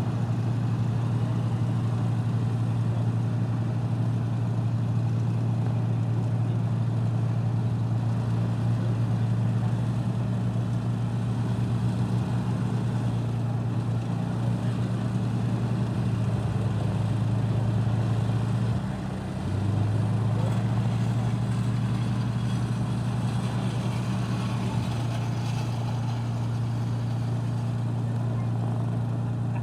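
de Havilland Mosquito's twin Rolls-Royce Merlin piston engines running at low, taxiing power: a steady deep drone that dips briefly and settles at a slightly different pitch about two-thirds of the way through.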